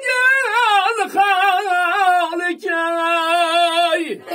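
A man singing in a high, full voice with strong vibrato, running ornamented phrases and then a long held note that drops away about four seconds in, over a tar whose note rings on steadily underneath.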